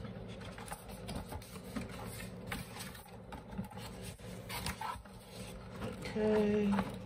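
Cardboard box being opened by hand: flaps pulled back and the packed contents handled, giving irregular scraping, rubbing and light knocks of cardboard.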